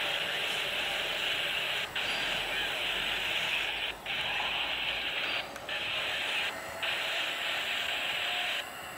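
Static hiss from a railroad radio scanner. It drops out abruptly a few times and cuts off near the end.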